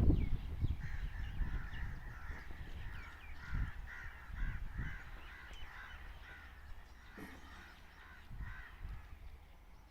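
Birds calling, a busy run of short repeated calls that thins out after about seven seconds, over a low rumble that is loudest at the start and fades.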